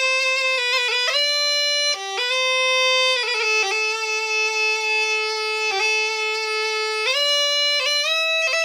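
A bagpipe playing a slow melody of long held notes without a break, each change of note marked by a quick grace-note flick. No drone is heard under the chanter.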